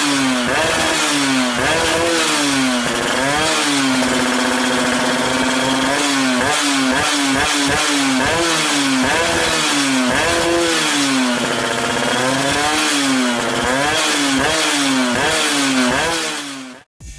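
Yamaha F1ZR two-stroke single-cylinder underbone motorcycle with an aftermarket racing exhaust, revved over and over: the engine note climbs and falls again and again, with runs of quick throttle blips and a few longer holds at steady revs. The exhaust note is likened to a Ninja. It cuts off suddenly near the end.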